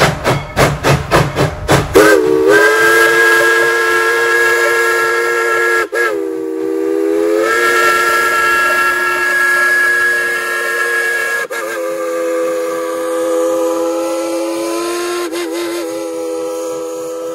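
Steam locomotive No. 190 (a Baldwin 4-6-0) working steam, its exhaust chuffing rapidly, about five beats a second. About two seconds in, its whistle starts blowing a loud chord of several notes, held in long blasts with brief breaks and the pitch sliding as the valve opens.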